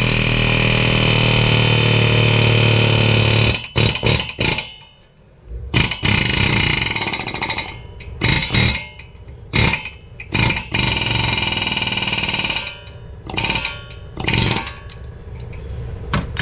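Pneumatic air hammer with a blunt bit hammering the lower ball joint out of a Honda Element steering knuckle clamped in a vise. It runs first in one long burst of about three and a half seconds, then in a string of short bursts with pauses between.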